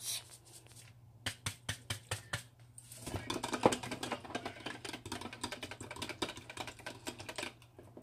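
Whisk beating eggs in a container, a run of rapid clicking strokes. The clicks are separate at first, then from about three seconds in they come fast and steady for several seconds.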